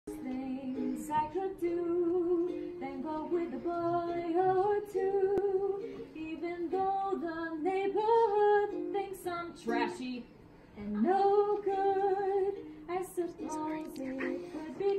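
A woman singing a slow song to her own ukulele accompaniment, her voice well in front of the strumming, with a short break in the singing a little after ten seconds.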